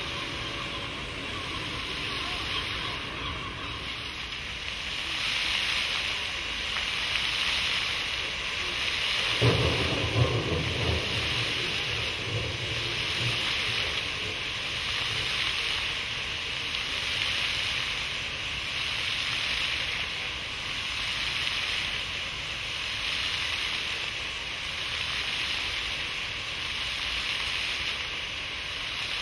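Water jets of a ground-level pavement fountain splashing onto wet paving: a steady rain-like hiss that swells and eases in slow waves every couple of seconds. A brief low rumble comes about ten seconds in.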